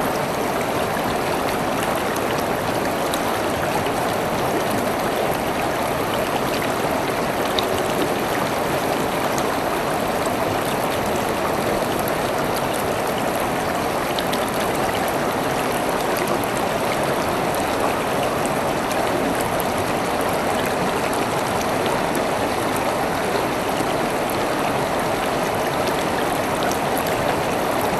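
River water flowing steadily over rocks: a continuous rushing with small splashes and trickles.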